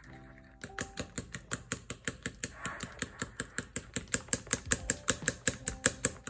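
Fork beating a thick batter in a bowl, the fork clicking against the bowl's sides in a fast, even rhythm of about six taps a second, starting a little over half a second in.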